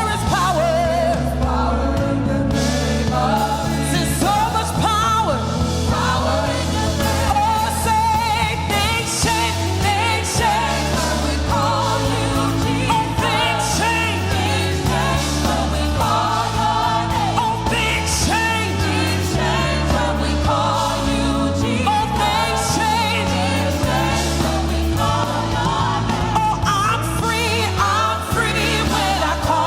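Worship team singing a gospel praise song over full band accompaniment, with a bass line moving under the voices.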